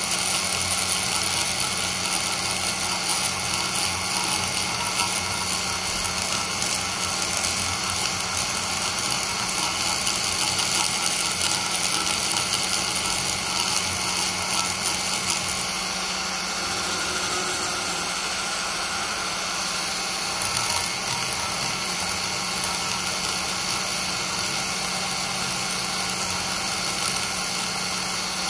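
A high-speed die grinder with a sharp single-cut burr cutting into the aluminium port bowls of a Toyota 2JZ-VVTi cylinder head, running steadily with a high whine and grinding. It is rough-porting the bowls to clean out core shift.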